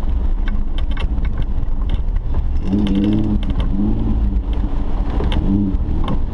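Suzuki 4x4's engine heard from inside the cab, running hard under load with the revs swelling and dropping several times. Short sharp clatters of mud hitting the body and windscreen come through over it.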